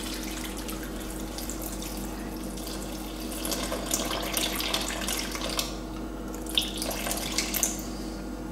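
Warm water poured in a thin stream from a kettle into a bread-maker pan of flour, splashing and trickling, with the pour stopping near the end.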